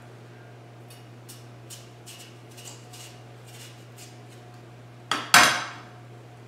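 Kitchen knife cutting cantaloupe slices away from the rind on a cutting board: a run of soft, short strokes, then about five seconds in the knife clatters down onto the board, loud and ringing briefly.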